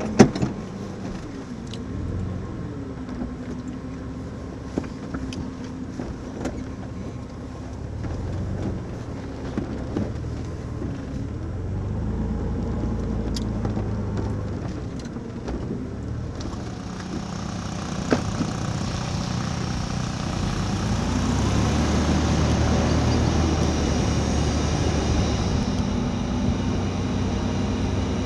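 A motor vehicle's engine running, its pitch rising and falling as it changes speed. It gets louder and brighter in the second half.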